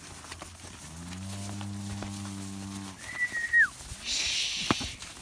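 A cow mooing once, a long low call of about two seconds. It is followed by a short high steady tone that drops away at its end, then a brief hiss.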